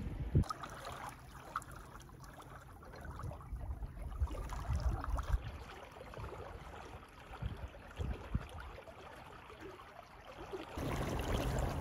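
Water rushing and gurgling along the hull of a sailboat under way, with gusts of wind buffeting the microphone; it gets louder near the end.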